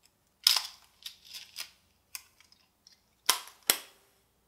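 Mechanical clicks from a Canon AE-1 35mm film SLR's controls as it is worked by hand: one sharp click about half a second in, a run of lighter clicks, then two loud clicks in quick succession a little after three seconds.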